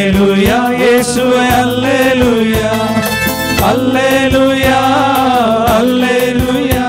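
Devotional hymn music from a Korg Pa700 arranger keyboard: a gliding melody line over a steady rhythm backing.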